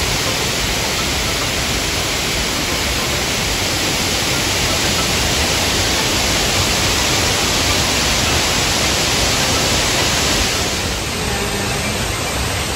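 A waterfall: a loud, steady rush of falling water. It changes a little and drops slightly in level about eleven seconds in.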